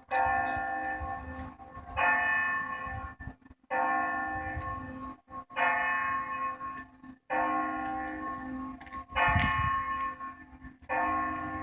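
Church bell tolling for noon: seven strokes a little under two seconds apart, each ringing on and fading before the next.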